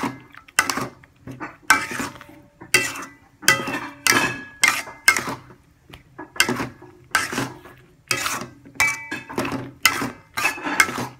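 Metal spatula scraping and knocking against a metal wok while stir-frying a thick sambal chili paste in oil. The strokes come about one or two a second, some leaving a brief metallic ring.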